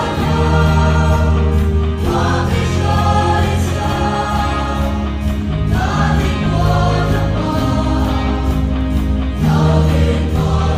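Mixed choir of women and men singing a gospel hymn in phrases, over steady low sustained notes.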